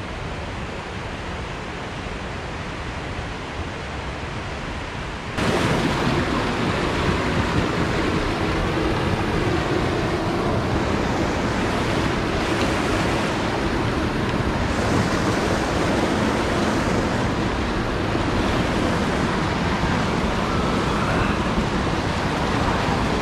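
Rushing mountain stream running over rocks: a steady wash of whitewater. It gets abruptly louder about five seconds in and stays steady after that.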